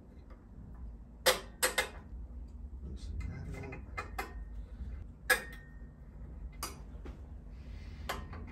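Hand tools and metal hardware clicking and clinking, about six separate sharp knocks with a brief metallic ring after the loudest ones, while the headlight and light bar are unfastened from a Harley-Davidson Heritage Softail's front end.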